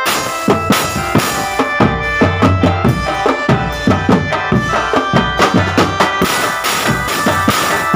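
Marching drumband playing: bass drums and snare drums beating a steady, fast rhythm.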